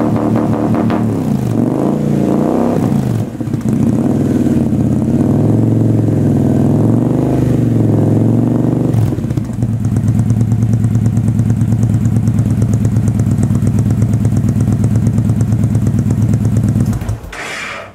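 2011 Victory Vision's 106-cubic-inch V-twin running through Freedom Performance true-dual exhaust pipes: revved in repeated throttle blips for about nine seconds, then settling into a steady idle. It cuts off near the end.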